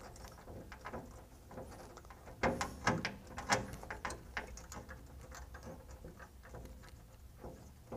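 Small clicks and knocks of a plastic nut and the air regulator and three-way valve assembly being worked loose by hand, with a louder cluster of knocks a few seconds in.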